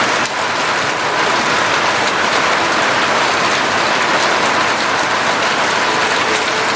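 Steady rain falling and pattering on surfaces, an even hiss with no pauses.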